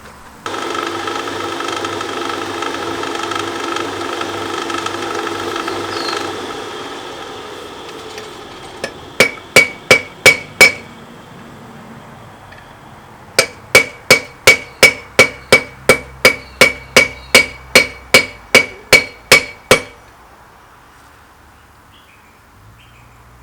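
Blacksmith's hammer forging the hot ring end of an old steel spanner on an anvil: a short run of about five blows, then after a pause a longer run of about eighteen at roughly three a second, each with a bright anvil ring. A steady humming tone sounds before the hammering and fades out before it starts.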